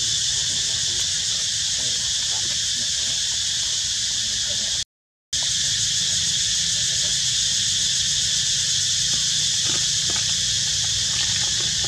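Steady high-pitched buzzing of an insect chorus over a low steady rumble. The sound cuts out completely for about half a second near the middle.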